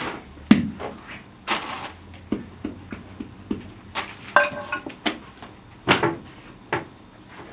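Bread dough being pressed and stamped on a stone slab with a wooden-handled bread stamp (chekich): a string of irregular knocks and taps, the loudest about half a second in and about six seconds in.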